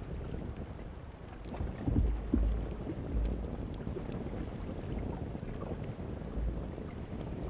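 Outdoor wind buffeting the microphone in deep rumbling gusts, over a steady rushing background, with a few faint crackles from the wood fire under the Dutch oven.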